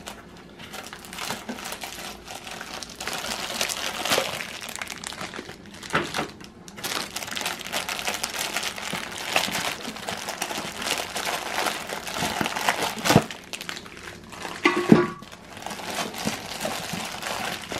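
Plastic wrapping around chair caster wheels crinkling and cardboard box flaps rustling as they are handled and unpacked, with a few sharp knocks, the loudest near the end.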